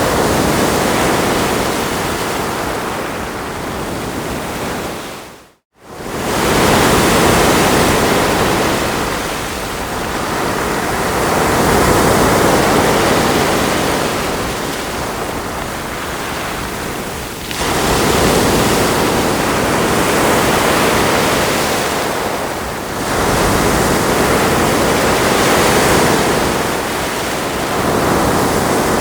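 Ocean waves washing onto a shore: continuous surf noise that swells with a new wave about every five or six seconds. The sound cuts out to silence for a split second about six seconds in.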